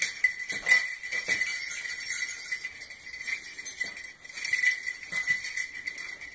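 Small bells jingling without a break, shaken unevenly, with louder bursts about a second in and around the middle.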